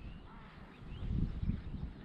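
Wind buffeting the microphone in uneven gusts, strongest a little past a second in, with a few faint bird calls over it.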